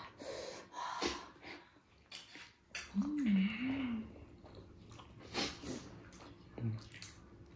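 A person eating laphing close to the microphone: short mouth and chewing noises and several noisy breaths, with a closed-mouth hummed 'mmm' that wavers up and down in pitch for about a second, about three seconds in.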